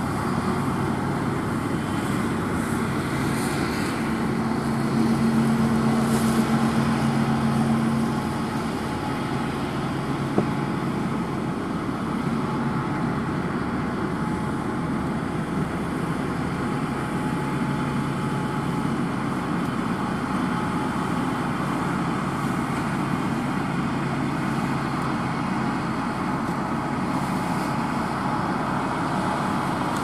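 Rostselmash Acros 560 combine harvester running steadily while harvesting grain: a continuous engine and threshing drone. It grows louder about four seconds in and eases back about eight seconds in, with one brief click shortly after.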